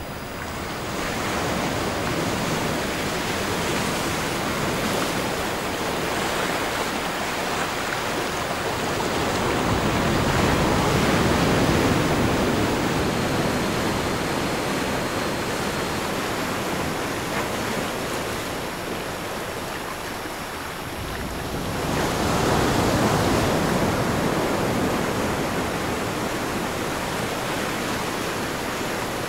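Ocean surf: a continuous rush of waves washing in, swelling louder about ten seconds in and again about twenty-two seconds in. Faint thin high steady tones sit above it.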